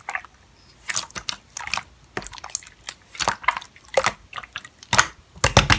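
Slime being squished and pressed by hand, making irregular wet clicks and pops that come thick and fast near the end.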